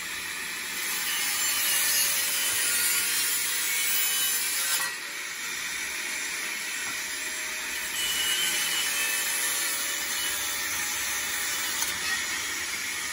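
Handheld electric angle grinder running steadily and cutting into a metal antenna mast pipe, a continuous grinding noise over the motor's whine. The noise grows louder under load in stretches, easing briefly about five seconds in.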